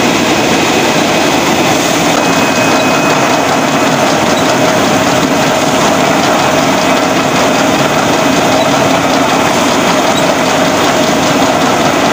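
Water-bottle labelling line running: a rotary labelling machine and conveyor carrying plastic bottles make a loud, steady mechanical clatter and hum, with a faint thin high whine.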